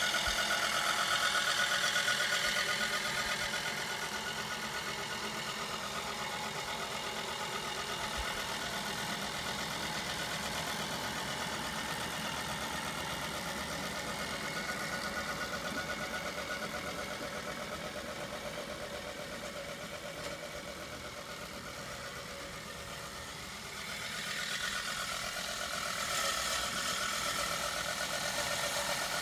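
Home-built remote-controlled lawn mower running steadily as it drives across the grass. It is louder at first, fainter through the middle, and louder again about 24 seconds in.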